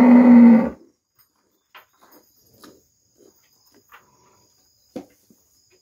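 A dairy cow's moo, held on one steady pitch, ends about a second in. After it, crickets chirp faintly and steadily, with a few soft knocks and rustles.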